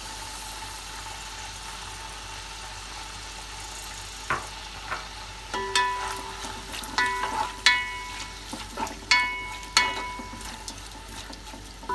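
Chopped onions sizzling in hot oil in a cooking pot. From about four seconds in, a spoon stirs them and strikes the pot several times, each strike ringing briefly.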